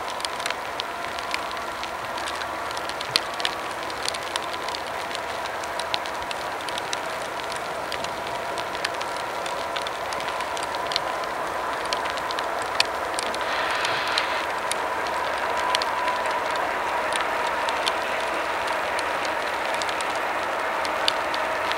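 Freight train rolling through a rail yard: steady running noise of the cars, with irregular sharp clicks of wheels over rail joints and a steady high whine. It grows a little louder in the second half, then cuts off abruptly.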